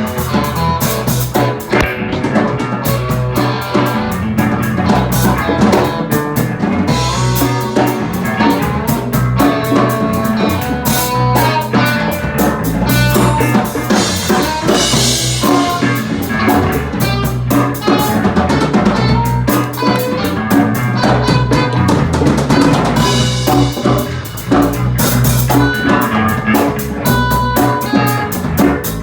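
Band music with a drum kit and a steady bass line playing a funky, upbeat groove.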